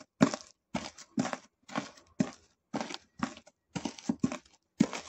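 Small crisp fried dough twists (mahua) crunched under the rubber soles of shoes, a run of short crunches two or three a second with brief gaps between.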